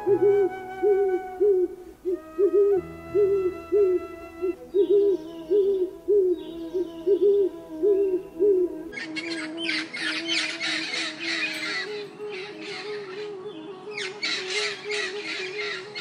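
An owl hooting: a quick series of short, low hoots, about one and a half a second, for the first nine seconds or so. Then a scratchy, rapid, higher chatter takes over.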